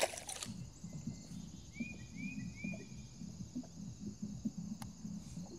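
A bird calling three times in quick succession about two seconds in, short rising-and-falling chirps, over a low steady hum. A brief noisy burst, the loudest sound, comes right at the start.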